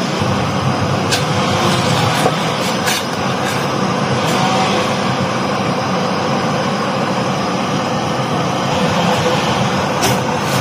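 Pot of fusilli at a rolling boil on a gas burner: a steady rushing noise. A few sharp clicks come from the plastic spoon knocking the pot as the pasta is stirred, about a second in, near three seconds and again near the end.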